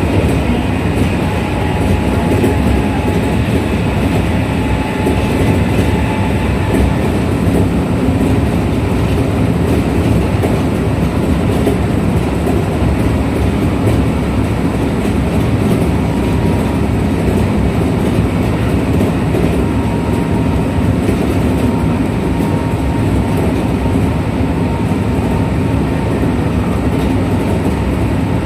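Kintetsu 1233 series electric train heard from inside a car while running at speed: a steady low rumble of wheels and track, with faint whining tones that fade out in the first few seconds. This set is labelled an abnormal-noise car, one that sounds different from a normal 1233 series.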